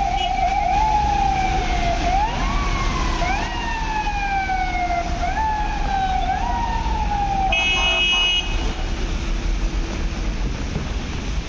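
Emergency vehicle siren sounding a tone that jumps up and then slowly falls, over and over, with two sweeps overlapping at times. About seven and a half seconds in, a brief blaring horn blast sounds for about a second and the siren stops. Steady street noise runs underneath.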